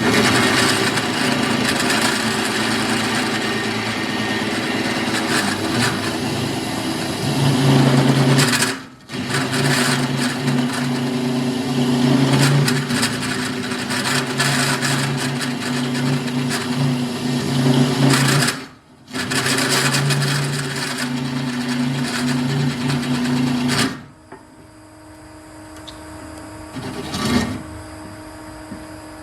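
Drill press driving an annular cutter through a steel upright: a steady motor hum under a loud grinding, chattering cut, broken twice by brief pauses. About 24 seconds in the cut stops and the sound drops to a much quieter hum with a single click.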